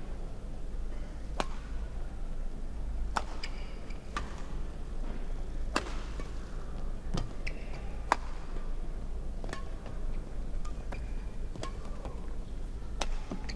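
Badminton rally: about ten sharp cracks of rackets hitting the shuttlecock, roughly one every second or so, with short squeaks of shoes on the court floor between them over a low steady arena hum.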